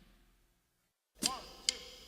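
A rock music track fades out into near silence, then about a second in a new passage starts with sharp percussive hits, each carrying a brief up-and-down gliding tone.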